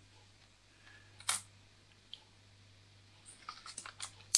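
Small plastic clicks from the battery compartment door of an Amköv AMK-R2 budget digital camera as it is worked open and shut and the battery fitted. There is one sharp click about a second in, then a quick cluster of clicks near the end, ending with the loudest snap.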